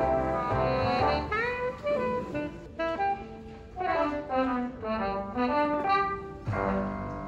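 Background jazz music with a horn melody over a pulsing bass line, settling into a held chord near the end.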